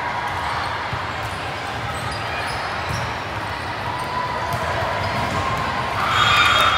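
Indoor volleyball rally on a gym court: the ball bouncing and being hit, with shoes squeaking and the spectators' chatter filling the hall. The crowd noise grows louder about six seconds in.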